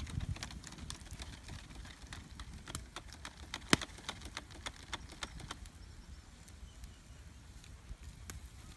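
Open wood fire crackling, with irregular sharp snaps and one loud pop nearly four seconds in.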